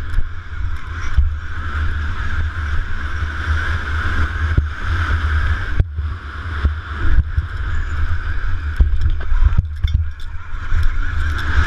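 Electric KTM Freeride motocross bike ridden hard on a dirt track, heard from an on-board camera: a steady high whine from the electric drive over heavy wind rumble on the microphone, with scattered knocks from bumps and the suspension.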